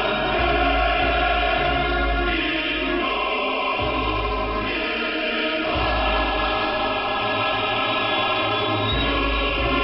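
Choral music with held chords that change every second or two, heard through a shortwave radio receiver with a narrow audio bandwidth that leaves it thin and lacking in treble.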